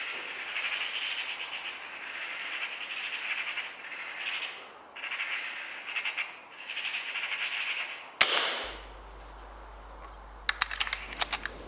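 Title-sequence sound effects: a rapid fluttering rattle in bursts for about eight seconds, then a single sharp gunshot crack, followed near the end by a quick run of about six clicks.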